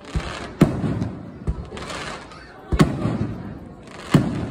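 Aerial firework shells bursting overhead: five booms, three of them loud (about half a second in, near the three-second mark and near the end), each trailing off in a rumbling echo.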